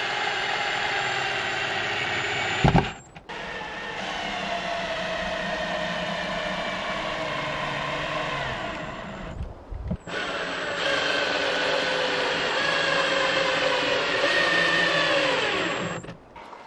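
Cordless drill-driver running screws into a wooden window trim board on a log wall: the motor whines in long runs of several seconds, its pitch slowly dropping and sagging near the end. A knock about three seconds in and a short break near ten seconds interrupt the runs.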